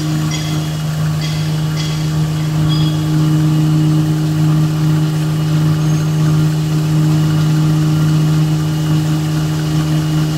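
Four-line double-embossing tissue paper machine running with a steady, loud, even hum, with a few faint high ticks in the first two seconds.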